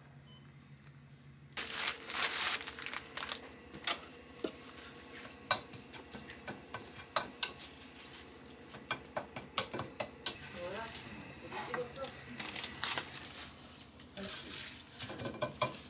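Kitchen cooking sounds: a steady sizzle starting about one and a half seconds in, with many clinks and knocks of utensils against pots and dishes, and faint voices.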